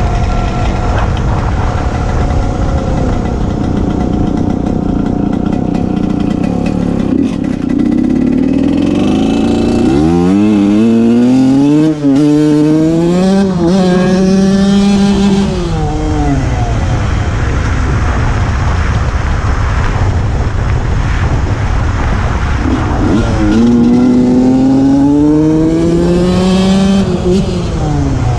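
KTM SX125 two-stroke single-cylinder engine pulling hard twice, its pitch climbing in steps through gear changes about ten seconds in and again near the end, with wind rumble on the microphone. The owner says the carburettor needs adjusting, which can be heard in its running.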